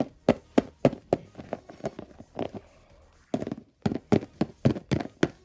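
Hard plastic Littlest Pet Shop figurines tapping and knocking on a tabletop as they are hopped about and tumbled by hand: a quick, irregular run of sharp taps with a short pause just past the middle.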